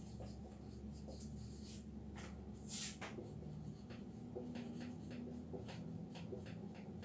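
Marker pen writing on a whiteboard: many short, faint strokes, with one brief louder rasp about three seconds in.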